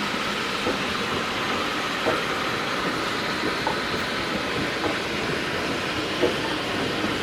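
Steam-hauled train running on the track: a steady rumble with faint, irregular clicks of the wheels over rail joints.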